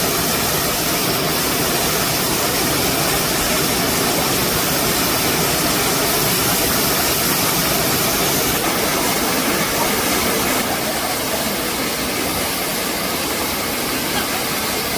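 Steady rush of a waterfall heard up close, a loud even wash of falling water that eases slightly about ten seconds in.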